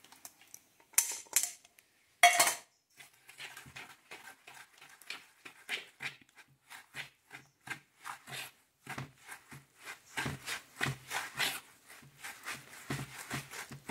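Metal fork beating eggs into tapioca starch in a basin: quick clinks and scrapes of the fork, about three a second. Near the start, a couple of louder clinks come from the fork and small aluminium pot as the eggs are scraped out.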